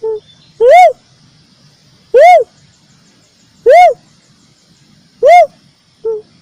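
Uncal (cuckoo-dove) lure call: four loud hooting notes, each rising then falling in pitch, about one every one and a half seconds, with a short quieter note at the start and another near the end.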